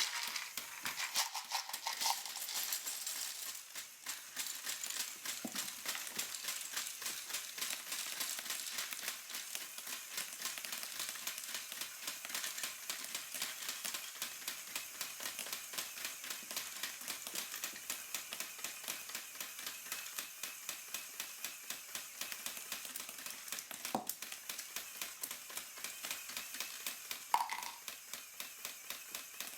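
A LEGO Technic rock crusher model running on its single Powered Up motor: plastic gears, shaker bars and track-link conveyors clicking and rattling steadily at about four clicks a second. There is a brief tone about a second and a half in, and a louder short sound near the end.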